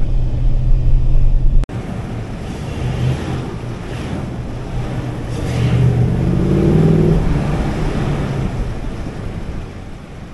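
Ram pickup truck driving on desert sand. First comes a steady engine drone from inside the cab; after a sudden cut about two seconds in, the engine and wind are heard from outside the truck. The engine note rises as it accelerates around six to seven seconds in, then eases off near the end.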